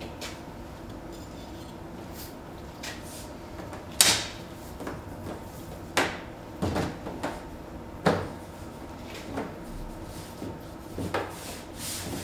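A metal gingerbread-man cutter knocks against a stainless-steel worktop as shapes are stamped out of rolled gingerbread dough. There are several sharp knocks, the loudest about four seconds in, with softer handling noises as the dough scraps are lifted.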